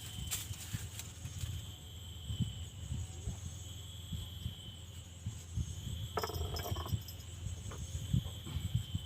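Steady insect chorus, crickets or similar: several high, continuous trilling tones held throughout. Uneven low rumbling sits underneath, and a short rough sound comes about six seconds in.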